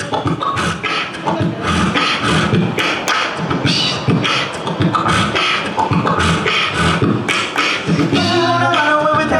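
A beatboxer laying down a steady rhythmic beat with his mouth into a microphone. Near the end, sung harmony voices come in over the beat.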